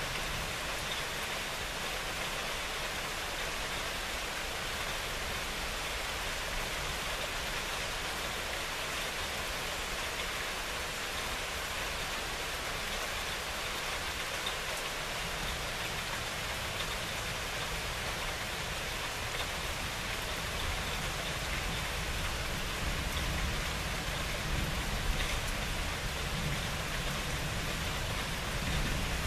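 Steady rain falling, with a low rumble of thunder starting to build near the end.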